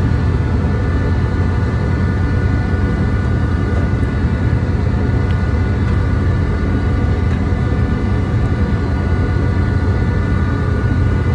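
Steady drone of a fishing trawler's machinery: a deep rumble with a high, even whine on top.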